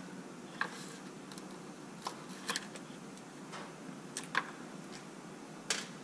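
Scattered light clicks and ticks, about seven over six seconds, of small screws, a driver and plastic parts being handled while screws are taken out of an RC truck's receiver tray.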